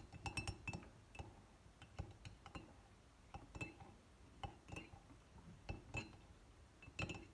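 A spoon clinking irregularly against the inside of a ceramic mug while stirring a thick dish-soap-and-salt slime mixture, light clinks with a brief ring, often in quick pairs, the loudest near the end.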